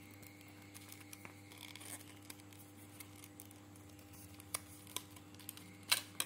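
Small clicks and rustles of a blue plastic watch display stand and a leather watch strap being handled as the watch is worked off the stand. A few sharper clicks come in the second half, the sharpest near the end, over a steady low hum.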